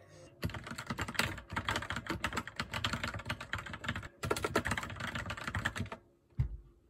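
Fast typing on a computer keyboard: a dense run of key clicks that breaks off briefly about four seconds in, resumes, and stops about a second before the end, followed by a single low thump.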